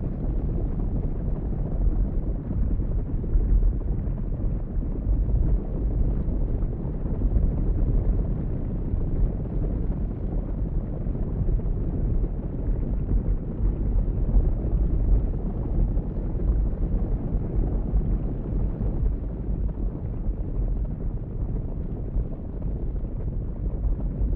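Wind buffeting the microphone outdoors: a steady, gusty low rumble with no cattle calls standing out.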